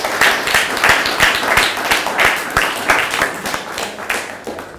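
An audience applauding with dense clapping that thins and fades out near the end.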